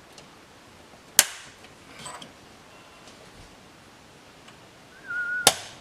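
Headlight lens retaining clips snapping into place on the housing: two sharp snaps about four seconds apart, the second just after a brief squeak.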